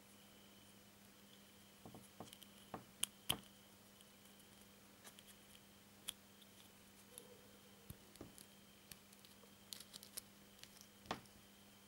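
Faint clicks and taps of a small plastic My Little Pony figure and its snap-on hood being handled and pulled apart by fingers, the loudest pair of clicks about three seconds in. A faint steady high trill of crickets runs underneath.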